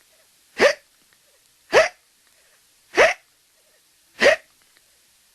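Four cartoon hiccups from a Hanna-Barbera sound-effect library, evenly spaced about a second and a quarter apart. Each is a short, sharp gulp that quickly rises in pitch.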